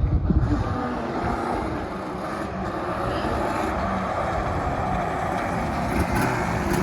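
Yamaha Banshee 350's stock-piped twin-cylinder two-stroke engine running, with a louder low surge at the very start, then a steady drone. It is running like poo-poo, which the rider puts down to the spark plugs.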